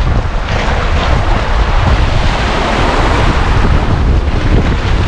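Strong wind buffeting the microphone with a heavy rumble, over sea waves washing against the rocks, which swell up in the middle.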